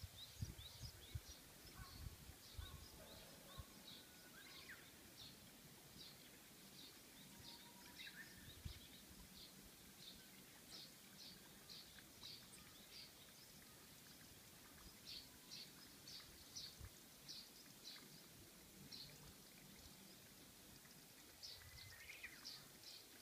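Faint birdsong: short high chirps repeated a few times a second, with an occasional lower call.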